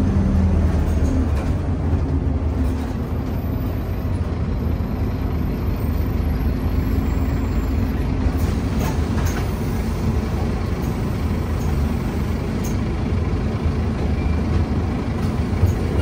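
Scania OmniCity bus's diesel engine running with a steady low drone, heard from inside the passenger saloon along with the bus's body and road noise.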